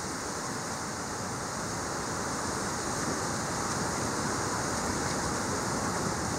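Storm wind and rain: a steady rushing noise that slowly builds.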